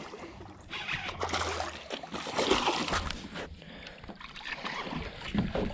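A hooked Suwannee bass splashing and thrashing at the water surface as it is reeled in beside the boat, in several bursts of splashing.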